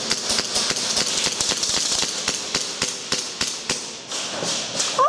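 Airsoft guns firing in rapid, irregular volleys of sharp cracks, several a second, thinning out near the end.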